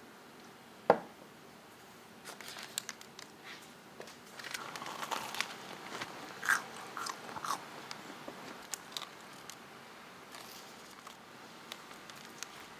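A person biting into and chewing crunchy food in a run of crisp crunches, with one sharp knock about a second in.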